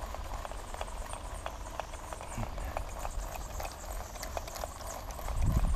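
Wind buffeting the microphone as a low rumble that swells near the end, with scattered sharp clicks and ticks throughout.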